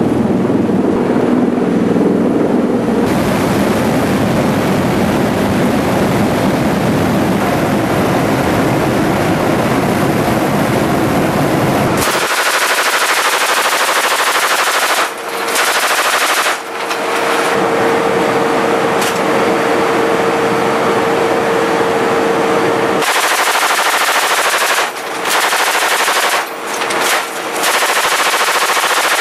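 M240G 7.62 mm machine gun firing long bursts from the open ramp of an MV-22B Osprey, with a few brief pauses between bursts, over the aircraft's engine and rotor noise. The sound changes abruptly about twelve seconds in, with a steady hum under the firing after that.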